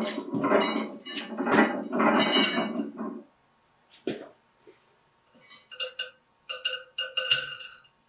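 Steel weight plates clinking against each other a few times, each knock leaving a short metallic ring, near the end. A single click comes a little before them.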